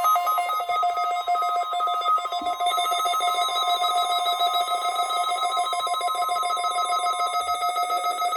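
A weather radio receiver's alert alarm ringing as a rapid, pulsing two-tone trill, set off by the weekly test broadcast. Under it runs a steadier warning alarm tone from the broadcast, which stops about seven seconds in.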